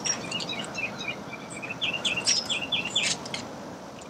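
Small songbirds chirping: a string of short high notes, then a run of quick down-slurred chirps about two seconds in.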